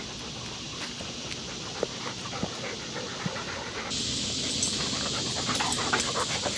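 Labmaraner dogs (Labrador–Weimaraner mixes) panting on a walk, with scattered light crunches and steps on the trail.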